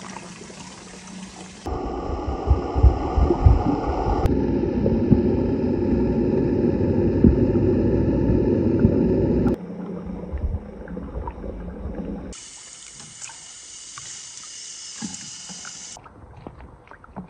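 Water sloshing and splashing as tomatoes are washed by hand in a large basin of water. From about two seconds in to about halfway through, the sound turns to a louder, muffled underwater rumble as heard from below the surface, then cuts back to splashing, with small drips and splashes near the end.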